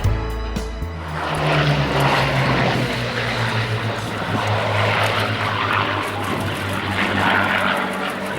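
Piston-engined propeller aircraft in flight: a steady engine drone with a low note that drops slightly in pitch a second or two in.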